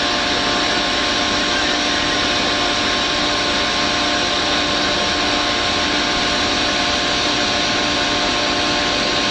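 Steady machinery drone: a constant hiss with an unchanging hum, without knocks or breaks.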